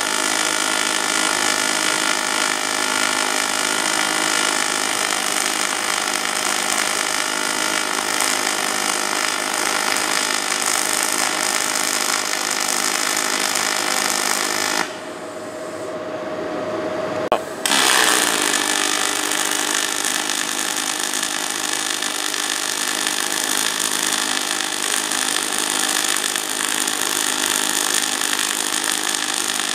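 AC MIG welding arc on aluminum from a Lincoln Power Wave S350, running 4043 wire in straight argon: a steady, loud noisy sound with a hum in it. The arc stops for about three seconds a little past halfway, then strikes again and runs on.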